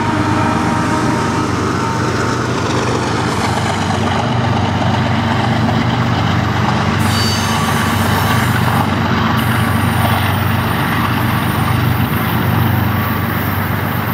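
BNSF diesel-electric freight locomotives running past with a steady engine drone over the rumble of rolling wheels on rail. One tone drops a little in pitch about three seconds in as the locomotives go by.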